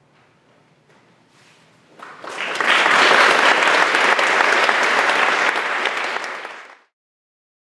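Audience applause breaking out about two seconds in, after a brief hush, and cut off abruptly near the end.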